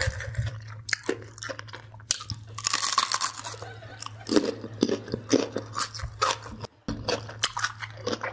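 Close-miked mukbang eating: loud crunching bites and wet chewing of breaded fried food and raw jalapeño, in irregular crackly strokes over a steady low hum.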